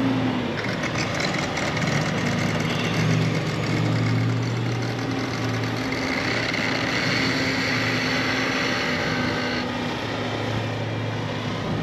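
An engine idling: a low, steady hum.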